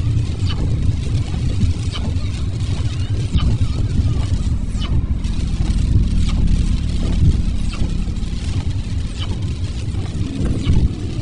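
Car driving on wet roads in the rain: a steady low road and engine rumble with the hiss of tyres on wet pavement and scattered short ticks.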